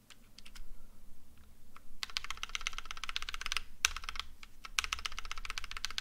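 Mechanical keyboard's Shift key, fitted with a lubed NovelKeys Blueberry tactile switch on a lighter spring swap, being pressed over and over: a few separate clacks, then fast runs of rapid clacks from about two seconds in. The key keeps resetting; Shift seems immune to the sticking that a light spring causes on the spacebar.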